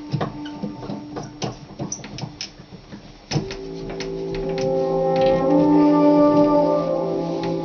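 Background music: short plucked notes for about the first three seconds, then held chords that come in abruptly and grow louder.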